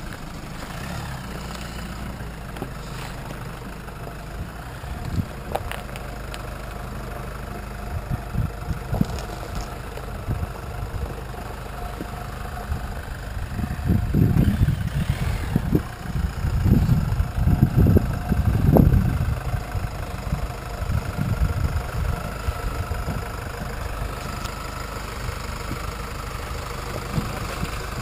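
Jeep Wrangler JK's 2.8-litre four-cylinder turbodiesel running at low revs as it crawls over rock ledges towing a caravan, with louder low rumbling swells about halfway through.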